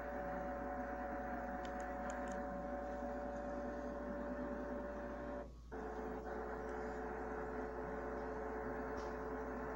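Steady drone with a few held tones over a low mains-like hum, played through a television speaker from a train-ride video. It drops out briefly about five and a half seconds in and comes back with the tones at a slightly different pitch.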